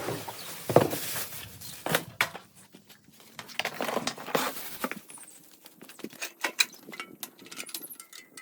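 Irregular knocks, clicks and rustling, as of objects being handled, with several louder knocks in the first half.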